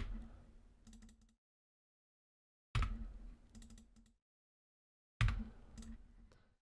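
Typing on a computer keyboard in three short bursts of keystrokes, with silence between them.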